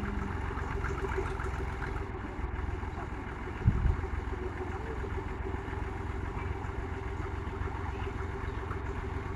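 Tractor diesel engine running steadily at idle, a low hum, with a single thump about three and a half seconds in.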